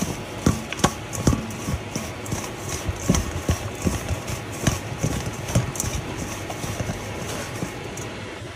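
A hand tossing and mixing chopped herbs, garlic and dry spices on a stainless steel tray: irregular light taps and rustles of fingers and food against the metal, a few a second, growing sparser near the end.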